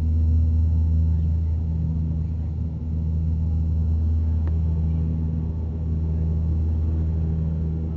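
Cabin noise of a Dash 8 turboprop airliner climbing after take-off, heard from a window seat beside the engine: a steady, loud low drone of the propellers and engine, with a few steady tones above it.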